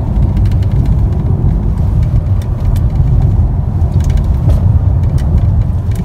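Steady low rumble of a car driving along a paved road, heard inside the cabin: tyre and engine noise.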